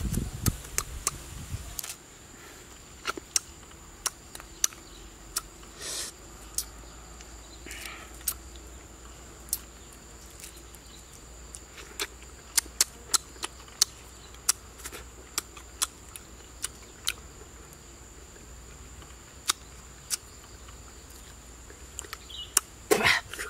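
Mouth sounds of a person eating raw honeycomb: scattered, irregular wet smacks and clicks of chewing and lip-smacking. A steady high-pitched whine runs underneath.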